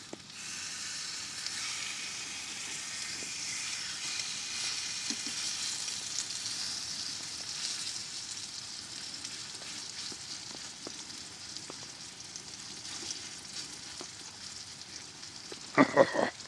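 Thick ribeye steak sizzling steadily in a hot frying pan beside onions, the sizzle starting as the steak goes in. A brief loud burst near the end.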